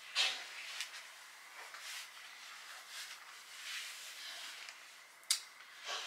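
Scattered rustling and scraping of clothes being handled and rummaged through, with a few soft knocks and one sharp click about five seconds in.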